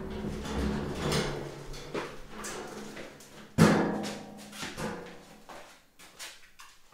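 Metal wheelbarrow rattling and clanking as it is pushed over a wooden plank floor, with one loud bang about three and a half seconds in, then growing fainter as it moves away.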